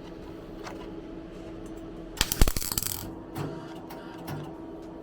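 A short burst of welding on a rusty steel strut-top reinforcement panel: a loud crackle about two seconds in that lasts under a second, then a couple of small clicks, over a steady hum. The welder is playing up, which the owner calls one of its dicky fit days.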